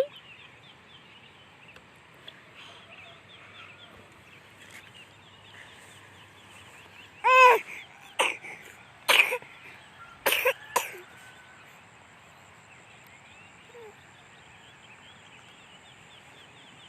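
A sick child coughing in a fit of about five coughs, from about seven to eleven seconds in, the first one voiced. The child has a cold, with cough and fever. Faint high chirping runs through the background.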